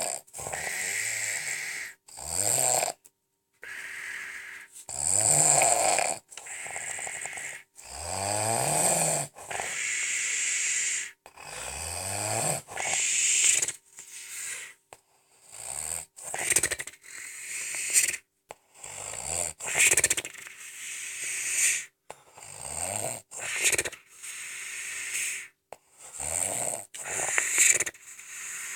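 Unusual snoring: a long series of rasping snores, each opening with a low tone that rises in pitch. The snores come every two to three seconds at first, then shorter and quicker, about one a second, in the second half.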